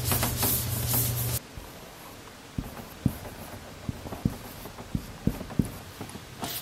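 Pen writing by hand, its tip making sharp, irregular ticks and scratches on the surface as letters are drawn. Before that, a loud rushing noise over a low hum cuts off suddenly about a second and a half in.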